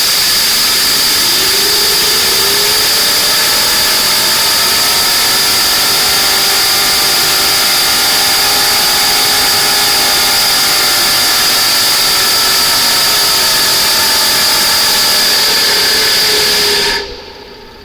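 Compressed-air jet blowing into the inlet of a homemade jet engine: a loud steady hiss with a high whistle, while the rotor spins up underneath with a whine whose pitch rises and then sinks. The air cuts off suddenly near the end. The whine is not as high as hoped, which the builder puts down to too much friction in the shaft's scrap bronze plain bearing.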